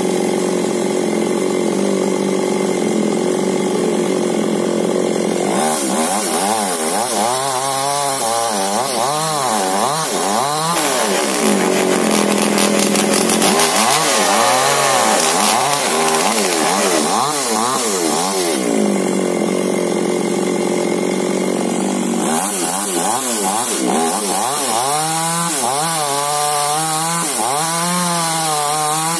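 Chainsaw running at high revs and cutting wood. Steady stretches alternate with spells where the engine pitch dips and climbs back again and again as the chain bites into the cut.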